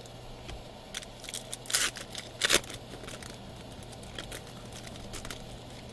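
Foil trading-card pack being torn open by hand: a run of crackling rips, loudest about two and a half seconds in, then lighter crinkling of the wrapper.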